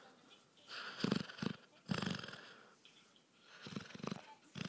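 Basset hound snoring pretty loudly in two groups of breaths: a pair of short snorts followed by a longer snore about a second in, then again near the end.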